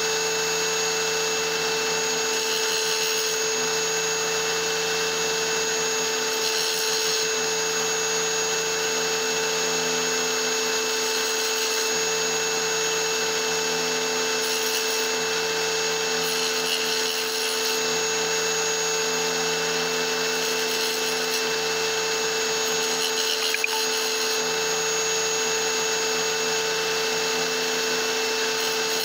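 Wet tile saw running with a steady hum while a small piece of petrified wood is held against the blade to grind it into a die; the grinding of stone on the blade comes and goes over the hum.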